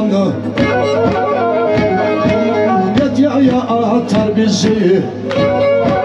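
Black Sea kemençe playing a fast horon tune over a steady beat, through a stage PA; a man's voice sings a short word near the end.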